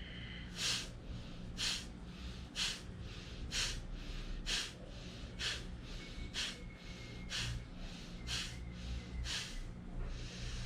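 Kapalbhati pranayama breathing: ten sharp, forceful exhalations through the nose, about one a second, each inhalation left passive between them.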